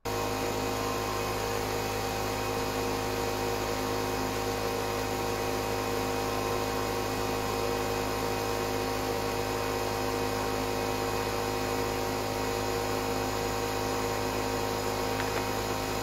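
Air compressor running steadily, cutting in suddenly, with a constant mechanical hum.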